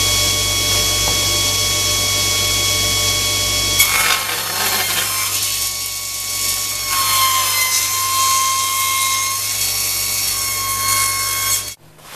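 Table saw running with a steady whine, then ripping a glued maple blank down its centre from about four seconds in, the blade's pitch dipping slightly under the load. The sound cuts off suddenly near the end.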